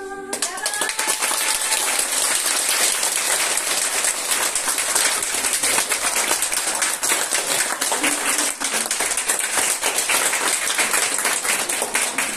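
Small audience applauding with a dense, even patter of hand claps, starting just as the last note of a song dies away.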